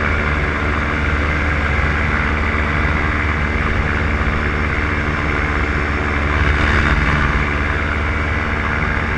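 Solo 210 single-cylinder two-stroke paramotor engine running steadily in flight, its propeller droning, swelling slightly about two-thirds of the way through.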